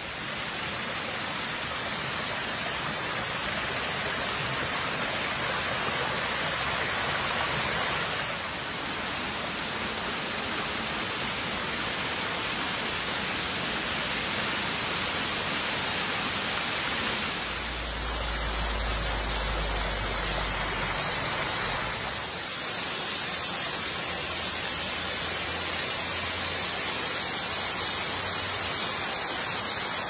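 Small waterfall cascading over rock ledges into a creek: a steady rushing of water. Its tone shifts abruptly a few times, and there is a low rumble for a few seconds just past the middle.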